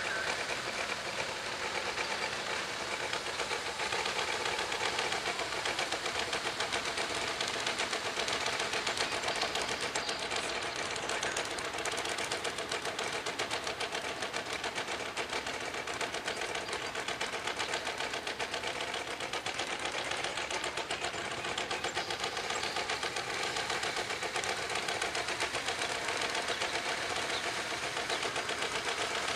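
Small rail speeder engines running steadily, with a fast, even ticking beat.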